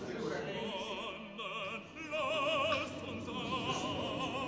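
Operatic singing in classical music: a voice holding long notes with a wide, wavering vibrato.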